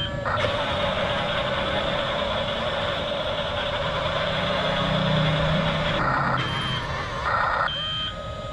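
Double Eagle E579 RC bulldozer running, a steady electric whine from its drive motors and tracks, then short electronic beeps and tones from its sound module near the end.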